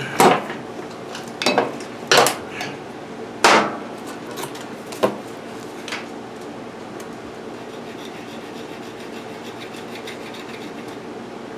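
Sharp knocks and clatters of hard parts and tools being handled, about half a dozen in the first six seconds, over a steady background hiss. The second half holds only faint scratching, consistent with a strip of Scotch-Brite pad being rubbed in the miter saw's motor brush holder.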